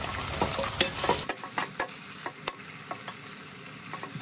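Sliced onions and green peppers frying and sizzling in a pot while a metal utensil stirs them, knocking and scraping against the pot in sharp clicks, thickest in the first second or so.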